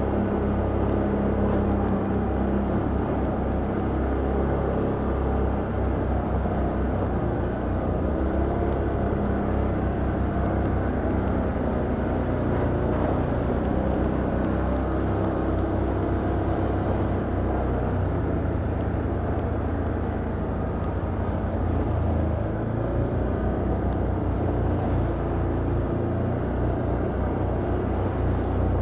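Can-Am Outlander ATV engine running steadily while riding along a trail.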